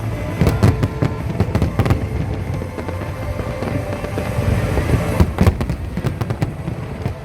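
Fireworks display: a run of bangs and crackling bursts, densest in the first couple of seconds and again around five seconds in, over music.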